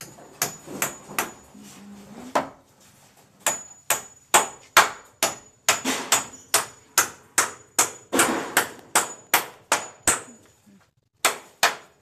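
Hammer driving nails into timber: a run of sharp blows, about two to three a second, many with a brief metallic ring. There is a pause of about a second after the first few strikes.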